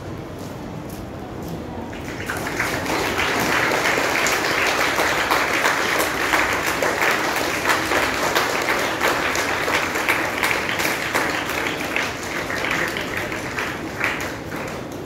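Audience applauding: clapping swells in about two seconds in, holds steady, and dies away near the end.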